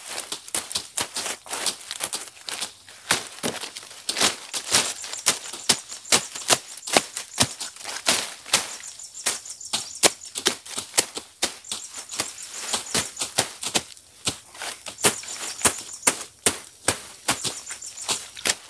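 Rapid, irregular sharp knocks and clicks, several a second, over a steady high hiss.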